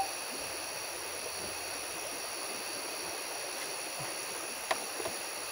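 Steady night chorus of frogs, heard as a constant hiss with several high unchanging tones, and a single light click a little before the end.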